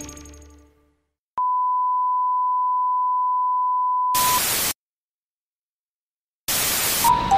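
The ringing tail of a short chime jingle fades out. A steady single-pitch test-tone beep then starts with a click and holds for about three seconds. A burst of TV static hiss cuts it off, and after about two seconds of silence the static starts again near the end, with a short beep in it.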